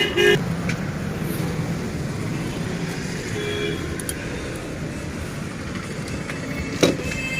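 Steady road-traffic noise, with a vehicle horn honking briefly at the very start and one sharp knock near the end.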